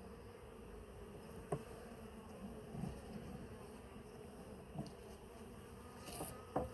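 A colony of honeybees buzzing in a steady, even hum around an opened hive, with a few light clicks from the hive parts being handled.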